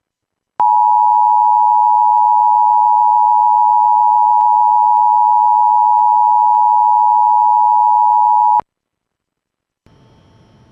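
Emergency Alert System two-tone attention signal: a loud, steady alarm tone near 1 kHz, held for about eight seconds and then cutting off abruptly. It signals that an emergency weather message is about to follow. Faint broadcast hiss comes in near the end.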